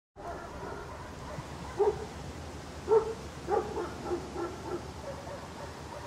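Guard dog barking angrily over steady background noise. A loud bark comes about two seconds in and another about a second later, then a run of quieter barks.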